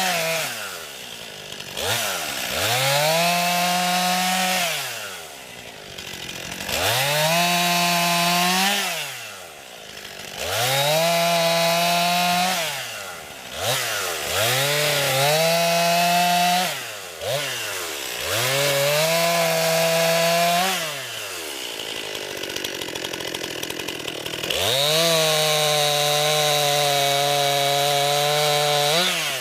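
A 50 cc two-stroke chainsaw cutting wood in a series of short cuts, revved to full throttle for two to three seconds at a time and dropped back to idle between, about six times. Near the end it runs at full throttle for a longer cut.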